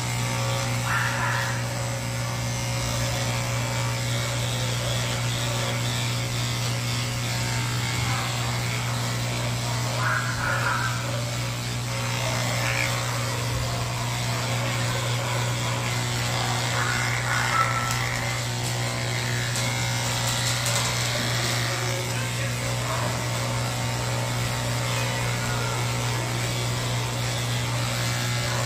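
Cordless electric pet clippers running steadily with a low hum while shaving matted fur off a cat, with a few short higher sounds over the hum.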